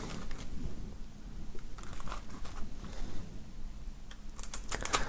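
Knife slitting and peeling the cellophane shrink-wrap off a CD jewel case: faint crinkling of plastic film, with a cluster of sharp crackles near the end.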